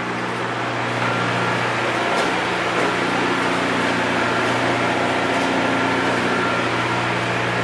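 A small passenger ferry's engines running steadily at the pier: a constant hum with an even rush of noise over it that grows a little about a second in.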